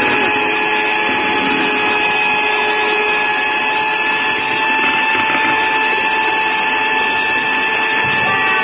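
Electric hand mixer running steadily, its two wire beaters whisking batter in a metal pot, with a constant motor whine.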